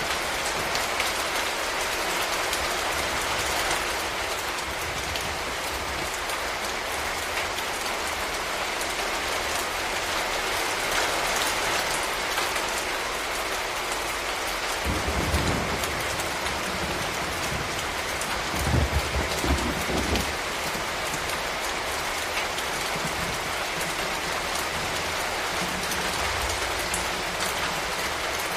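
Steady rain falling, an even hiss with no let-up. A few low thumps come about halfway through.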